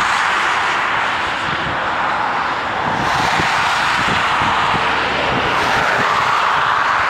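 Airbus A380 jet engines running as the airliner rolls along the runway toward the listener: a steady, loud jet rush with an uneven low rumble underneath.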